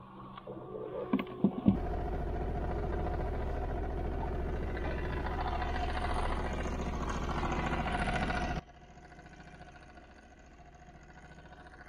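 A few knocks and a clatter, then a boat's outboard motor running steadily as the boat travels, with a low, even hum under water and wind noise. It starts abruptly about two seconds in and drops to a quieter level near the end.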